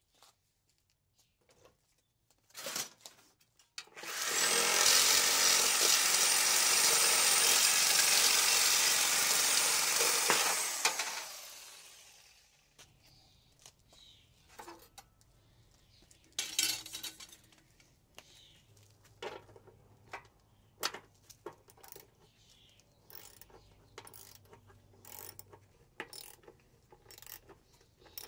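A handheld power saw runs steadily for about seven seconds, cutting through the copper refrigerant pipe on an AC compressor, then winds down. Later come scattered clicks of a socket ratchet working on a compressor mounting bolt.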